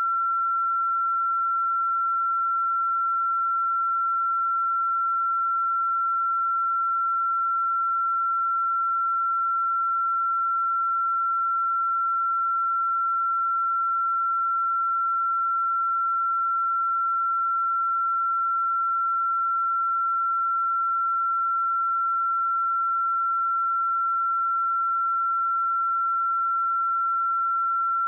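A pure 1356 Hz sine-wave test tone, held steady at one pitch and level throughout, used for checking speakers and headphones.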